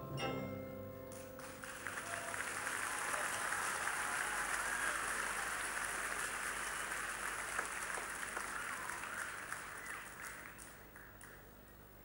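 The last notes of the corps' mallet percussion (marimba and vibraphone) ring out and die away in the first second. Then the crowd in the stadium applauds for about nine seconds, fading away near the end as the show finishes.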